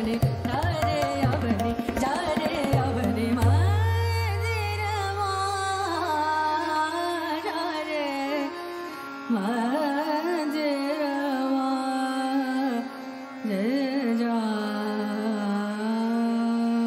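Indian classical vocal music: a singer's voice bends through long ornamented phrases over a steady held drone. Quick tabla strokes are heard in the first few seconds.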